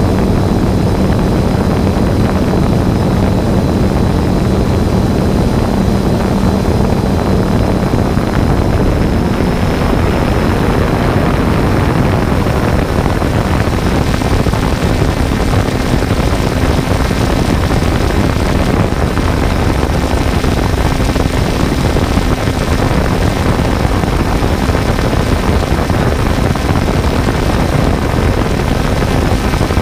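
Quadcopter drone's propellers running steadily in flight, a loud whirring hum whose pitch steps up slightly about midway.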